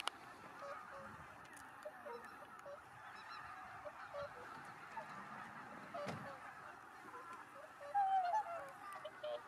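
A flock of swans and geese calling continuously, many overlapping honks, with one louder, nearer call about eight seconds in.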